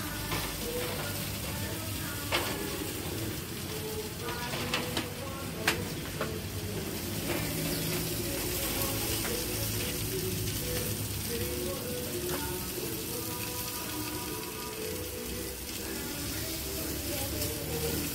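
Steady hiss and crackle of chicken cooking in a foil tray over a charcoal barbecue fire, with a few sharp clicks.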